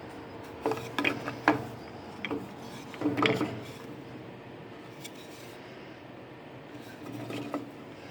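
Pieces of a glued-up wooden box being handled on a workbench: a few light knocks and some rubbing of wood on wood and on the bench, in two clusters early on and one more near the end.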